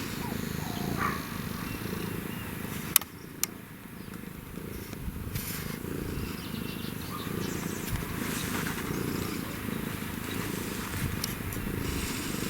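African wildcat purring steadily, with two sharp clicks close together about three seconds in.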